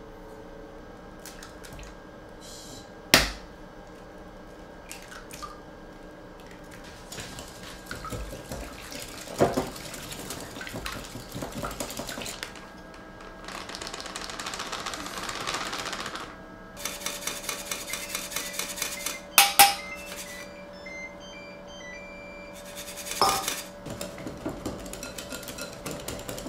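Batter being mixed by hand: a wire whisk beating in quick, regular strokes against a glass bowl, with sharp knocks and clinks of utensils on bowls. Near the middle, flour pours with a soft hiss from a paper bag into a steel bowl.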